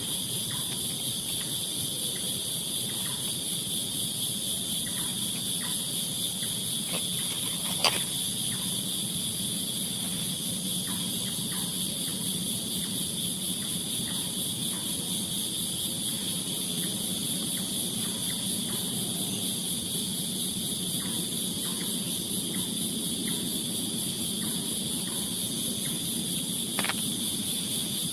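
Steady chorus of crickets and other night insects, holding two high pitches, with faint scattered ticks and a sharp click about eight seconds in and another near the end.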